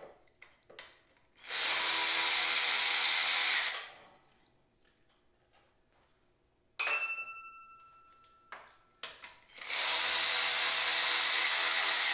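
Cordless ratchet running, spinning out the 10 mm engine mounting bolts: two steady runs of about two seconds each, one early and one near the end. Between them comes a metallic clink that rings on with a clear tone for about a second and a half.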